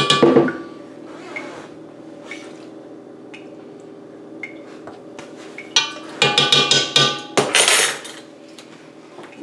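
Metal spoons clinking and scraping against a stockpot, with a clatter right at the start and a run of ringing clinks about six to eight seconds in. A steady low hum runs underneath.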